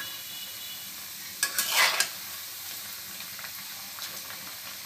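Piyaju (lentil and onion fritters) sizzling steadily as they deep-fry in hot oil, while a metal spatula turns them in an aluminium karahi. A brief, louder rush comes about one and a half seconds in.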